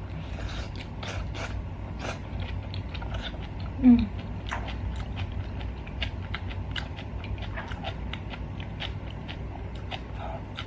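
Close-miked chewing of a mouthful of spicy stir-fried rice cakes and cabbage: a steady run of small wet mouth clicks, with a short low hum from the eater about four seconds in.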